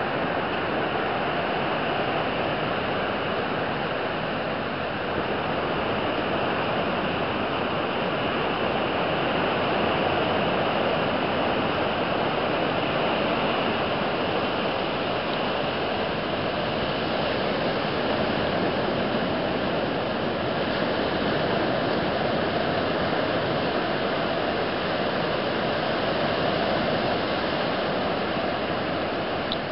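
Steady noise of ocean surf washing onto the beach, mixed with wind.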